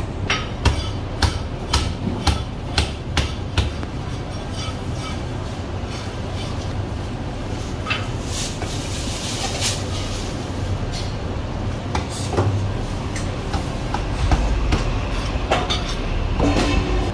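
A cleaver chopping marinated goose on a thick wooden chopping block: sharp chops about two a second for the first few seconds, then only occasional knocks as the cutting goes on. A steady low rumble runs underneath throughout.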